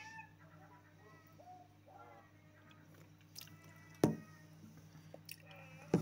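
Herring gulls giving faint, short mewing calls, with a sharp click about four seconds in and a louder, harsh gull call starting right at the end.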